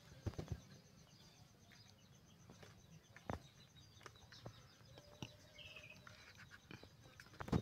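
Kittens scrabbling and bumping about inside a plastic tub: a few soft knocks, two near the start, one midway and the loudest near the end. Behind them runs a faint, fast, even insect chirping.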